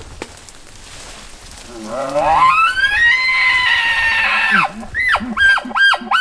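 Bull elk bugling: a low growl climbing into a long, high whistle held for about a second and a half, then a quick run of short chuckles near the end.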